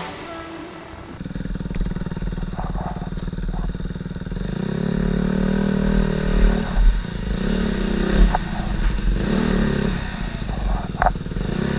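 Snow bike's dirt-bike engine running, then revving up and back down several times from a few seconds in, with a few sharp clatters.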